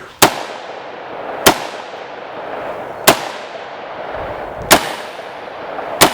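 AR-15 rifle fired five times, one shot about every second and a half, each crack trailed by a long echo.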